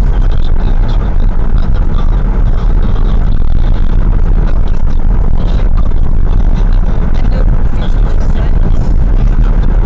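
Steady road and engine noise inside a car cruising at about 85 km/h, picked up by a windscreen-mounted dashcam: a loud, even low rumble of tyres and engine with no changes.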